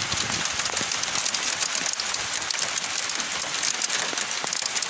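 Small hail mixed with rain pattering on a car's glass and roof: a steady, dense hiss of many fine ticks.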